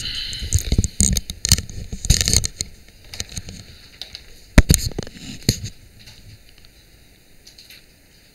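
Handling noise on a microphone: a quick run of knocks and rubbing, then a few separate knocks, the loudest about four and a half seconds in, dying away toward the end.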